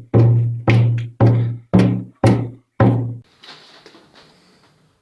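A low, pitched note struck over and over in an even rhythm, about two a second. Each note starts sharply and dies away quickly. The strikes stop about three seconds in, leaving a fainter scraping, rustling noise.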